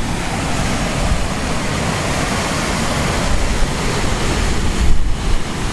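Sea surf washing and breaking over shoreline rocks below a rock arch, with wind buffeting the microphone in gusts, hardest about five seconds in.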